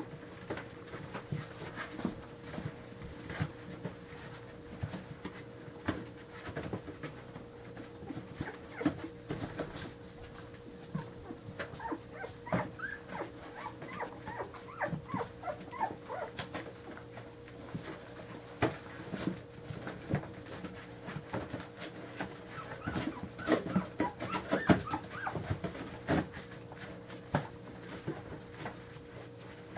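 Newborn Carolina Dog puppies squeaking and whimpering in short high cries, in clusters around the middle and again near the end, as their mother nudges them awake. Soft scattered taps and rustles over a faint steady hum.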